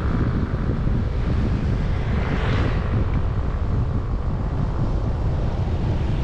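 Wind buffeting the microphone of a camera moving along a road, a steady low rumble with hiss above it that swells briefly about two and a half seconds in.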